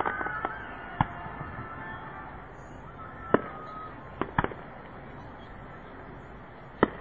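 Fireworks shells bursting: five separate sharp bangs at uneven intervals, the loudest a little past the middle and two close together just after it, over a steady background hiss.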